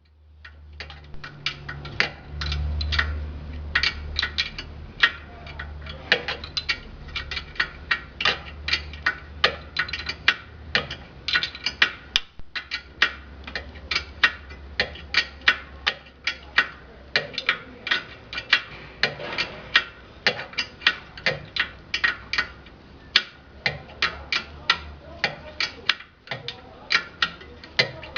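Hand ratchet wrench clicking in runs of short strokes, turning suspension bolts on the car, over a low steady hum.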